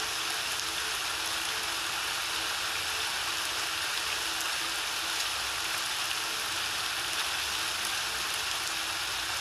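Steady rain from a rain-and-piano background track, an even hiss of falling drops. Faint held piano notes fade out over the first few seconds.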